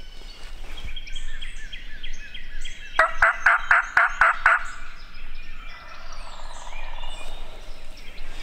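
Wild turkey gobble: one loud, fast, rattling series of about seven notes lasting about a second and a half, about three seconds in.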